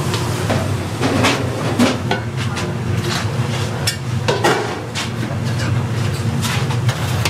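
Kitchen clatter: scattered knocks and clicks of utensils and dishes over a steady low hum.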